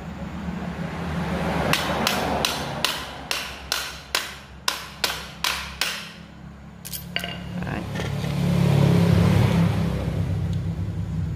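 A run of about ten sharp, evenly spaced knocks, a little over two a second, then two more a second later, as parts of a handheld wood router are tapped together during reassembly. A steady low hum runs underneath.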